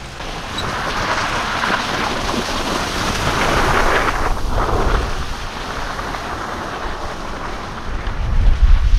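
A car being driven through an e-brake turn: a steady rush of tyre and wind noise that swells from about three to five seconds in, with low wind rumble on the microphone near the end.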